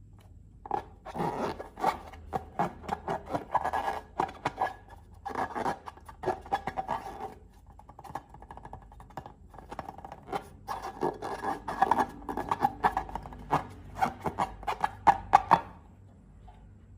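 Slime being mixed and squished: a rapid run of sticky clicks and pops in two bouts, with a pause of a few seconds around the middle.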